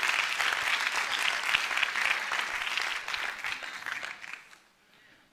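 Congregation applauding, the claps dying away about four seconds in.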